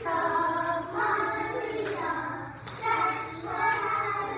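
A group of young children singing a song together, with a few claps.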